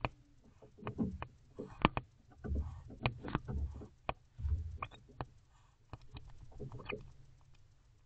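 Irregular clicks, scratches and soft thuds from a barn owl shifting and gripping with its talons on the wooden nest box right beside the microphone, thinning out near the end.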